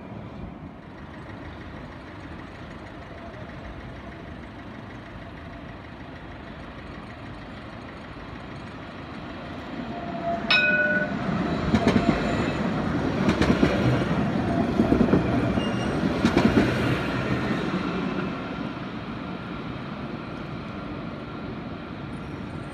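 Alstom Citadis tram running past on street track: a steady rolling noise that grows from about ten seconds in, is loudest over the next six seconds or so as it goes by, then eases. A short high tone sounds just as it draws close.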